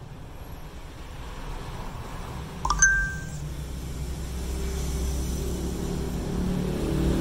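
A single short metallic clink or ding, ringing briefly, about three seconds in, over a low steady rumble that grows louder toward the end.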